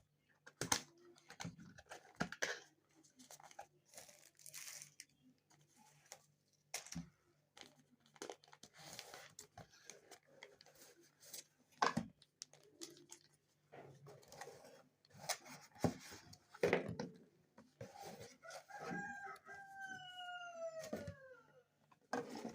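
Cardboard box and packaging being opened by hand: scattered rustles, tearing and clicks. About nineteen seconds in, a rooster crows in the background, a long call falling in pitch.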